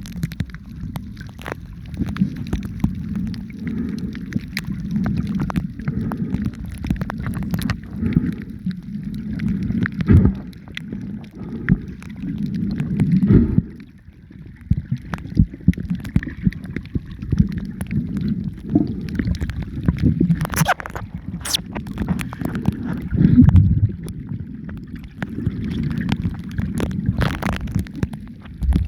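Wind buffeting the microphone in a gusty low rumble, with scattered sharp knocks and clicks.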